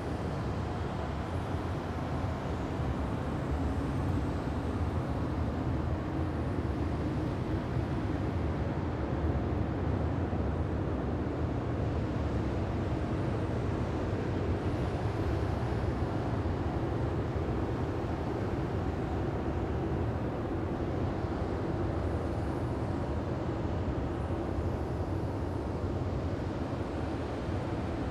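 Sci-fi alien-planet wind ambience: a steady, low, rumbling wind with a faint hollow drone in it, unbroken and without sudden events.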